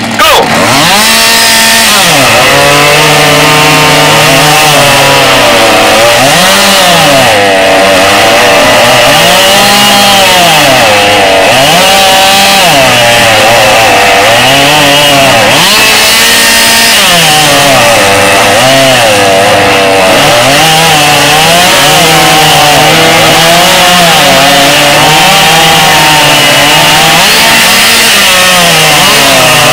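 Two-stroke chainsaw running flat out while cutting wood. Its pitch dips and recovers again and again as the chain bites in under load.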